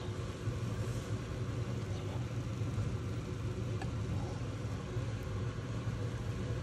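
A steady low mechanical hum with a rumble, even throughout, with no speech.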